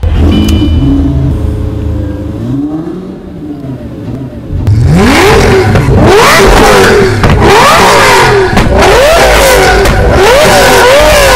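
Lamborghini Gallardo's V10 engine catching with a loud burst and settling into a fast idle. About five seconds in it starts being revved hard again and again in quick blips, the pitch shooting up and falling back each time, with pops and crackles from the exhaust as the revs drop.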